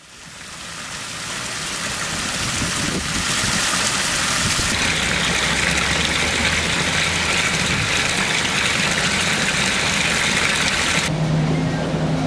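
Fountain water falling and splashing in a steady rush, fading in at the start and cutting off abruptly about a second before the end, where a few low steady tones take over.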